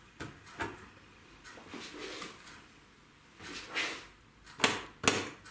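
Kitchen clatter of a metal utensil knocking against pans and cookware: scattered light knocks and a short scrape, then two sharp knocks about half a second apart near the end.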